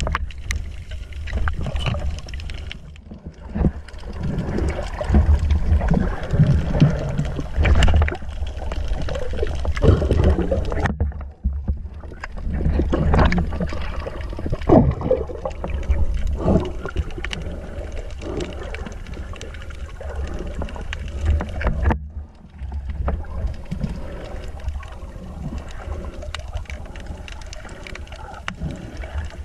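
Muffled underwater noise from a submerged camera: water rushing and gurgling past it, a constant low rumble, and scattered knocks and swishes as it is moved through the water. The sound drops out briefly a few times.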